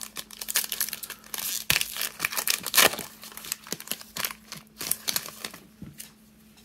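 The wrapper of a Panini Contenders trading-card pack being torn open and crinkled by hand: a run of sharp crackles and rustles that dies down about five and a half seconds in as the cards come out.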